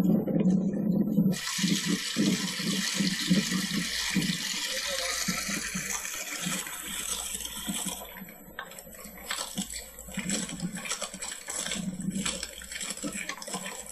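Glacial meltwater rushing over the ice in a steady wash that thins out about halfway through. Through the second half, irregular footsteps on the ice.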